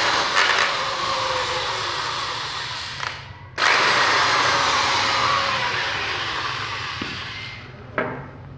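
Power drill unscrewing the screws of a metal cutter's handle switch: two runs of a few seconds each with a short break between, the motor's whine falling slowly in pitch through each run. A short click near the end.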